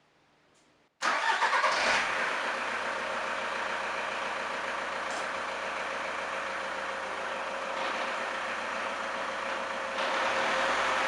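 Car engine running in fourth gear with the jacked-up drive wheels spinning freely, giving a steady loud hum from the wheels and hub bearings, used to tell which hub bearing is worn. It starts abruptly about a second in and gets slightly louder near the end.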